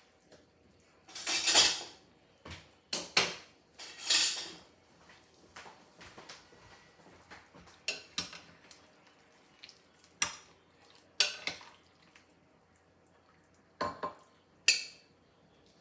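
A metal slotted serving spoon clattering and clinking against a crock-pot's ceramic insert and a ceramic bowl as chicken drumsticks are lifted out and served. Two longer clatters come in the first five seconds, then scattered sharp clinks.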